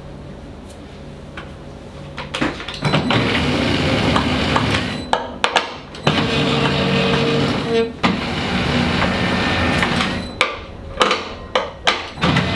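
Electric pastry dough sheeter running, its motor and conveyor belts starting about two and a half seconds in as croissant dough is rolled thinner between the rollers. The running stops and restarts several times with a sharp click at each change, as the lever reverses the belt for the next pass.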